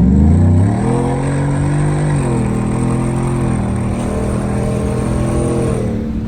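Ford F-150's 5.0 L Coyote V8 accelerating, its pitch rising and stepping down as the transmission shifts up about two seconds in and again later, with a thin, high, steady whistle over it from a cheap tailpipe 'turbo whistle' that stops near the end. The whistle sounds nothing like a turbo, more like a mean dog whistle.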